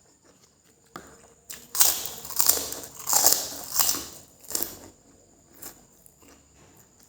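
Close-miked eating of fried noodles with sautéed chilli: a loud run of noisy mouthfuls and chewing lasting about three seconds, followed by softer, scattered chewing clicks.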